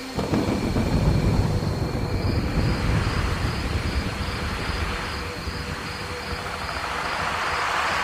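A clap of thunder breaks in suddenly and rolls as a deep rumble for several seconds before fading. It gives way to a rushing hiss of rain that swells near the end.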